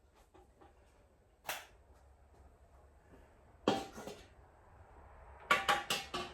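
Sharp metallic clinks and knocks of hand tools and mower parts being handled: a single knock about a second and a half in, a short cluster around four seconds, and a quick run of four or five near the end.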